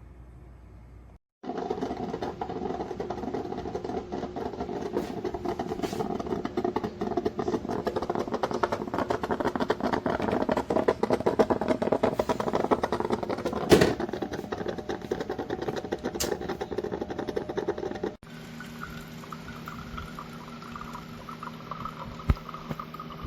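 Hamilton Beach FlexBrew Trio coffee maker brewing: a dense crackling, gurgling sputter of water heating and pushing through. Near the end it gives way to a quieter steady hum.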